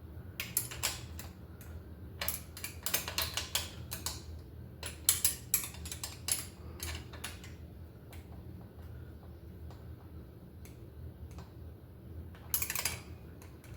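Metal tool and brake hardware clicking and tapping as the pads of a cantilever bicycle brake are adjusted and tightened, in irregular clusters over the first several seconds and again briefly near the end.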